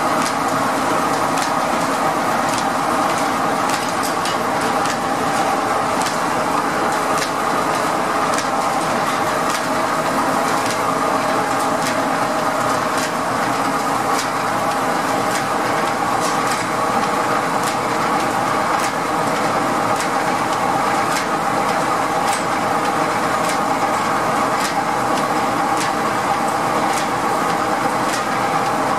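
Steam-powered sawmill machinery running steadily: the large circular saw blade spinning and its flat belts and pulleys turning, a constant mechanical whir with sharp ticks about once or twice a second.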